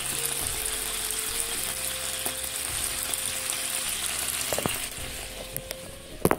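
Light (reduced-fat) butter sizzling and foaming in a nonstick frying pan: a steady frying hiss that eases a little towards the end, with a few short knocks near the end.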